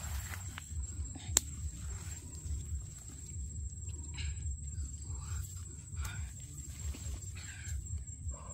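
Soft rustling and handling noises as fish and leaves are worked by hand in wet mud, with one sharp click about a second and a half in. Under it runs a steady high insect whine.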